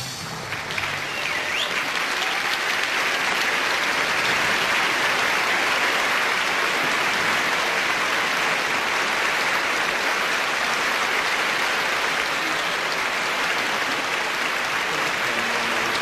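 Audience applauding as a song ends: dense, steady clapping that swells over the first few seconds and then holds.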